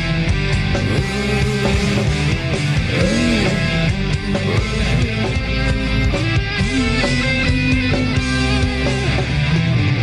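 Rock karaoke backing track playing an instrumental passage, with held notes that bend in pitch, likely lead guitar, over a full band.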